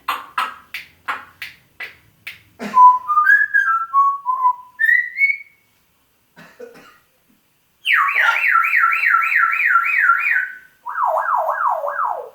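African grey parrot calling: a quick run of short sharp clicks, then a string of whistled notes stepping up and down. It then does a loud imitation of a car alarm siren: about three seconds of fast warbling sweeps, followed by slower, lower falling sweeps.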